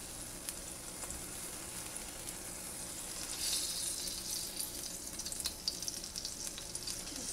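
Hot wok sizzling faintly, then a louder, crackling sizzle about three seconds in as vegetable oil is poured into it.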